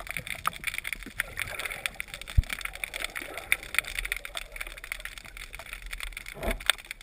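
Underwater sound picked up by a camera in its housing: a steady crackle of small clicks over water gurgling, with one sharp low knock about two and a half seconds in.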